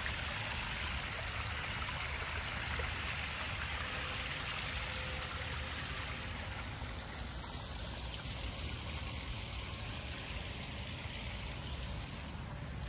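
Garden pond waterfall spilling over rocks into a koi pond: a steady rush and splash of running water, a little softer toward the end.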